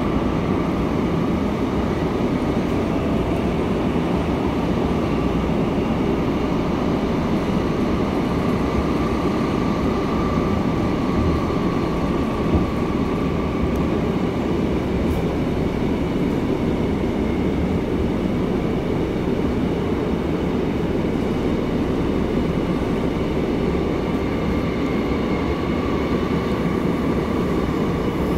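A Seoul Subway Line 8 train running between stations, heard from inside the passenger car: a steady rumble of wheels on rail and running gear, with a faint high whine that comes and goes.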